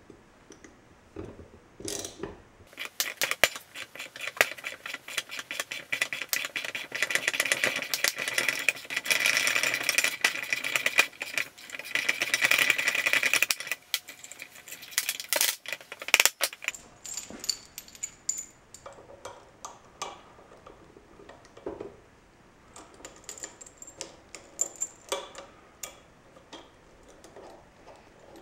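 Three-jaw wheel puller pulling a ball bearing off an electric motor's shaft: rapid metallic clicking for about eleven seconds while the puller is worked, then a few sharp clicks and lighter metal clinks as the puller is handled and taken off.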